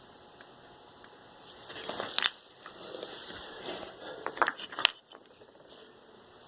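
Small hard objects being handled: a couple of short scraping rubs, then a few sharp clicks and clatters, the loudest a little before five seconds in.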